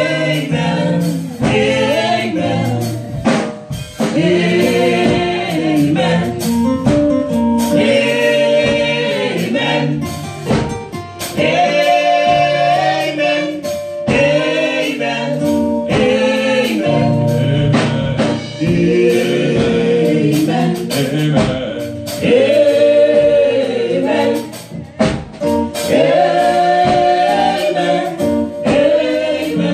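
Live gospel praise singing by a group of women vocalists through microphones, backed by a drum beat.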